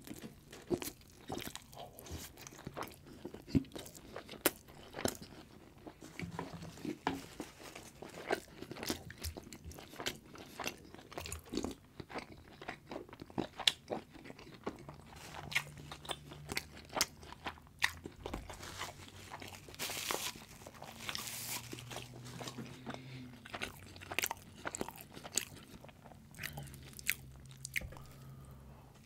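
Close-miked chewing and biting of saucy, cheese-topped fries and meat, with many irregular crunches and wet mouth clicks.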